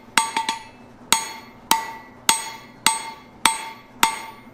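Hand hammer striking a red-hot 3/8-inch round steel rod on a wheelwright's anvil, each blow ringing out and fading. A quick cluster of three strikes near the start, then a steady beat of blows a little under two a second. These are smoothing blows that even out lumps and bumps in the drawn-out taper.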